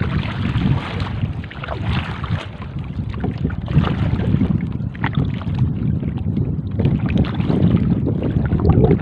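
Wind buffeting the microphone, with sea water lapping and splashing against the hull of a small outrigger canoe.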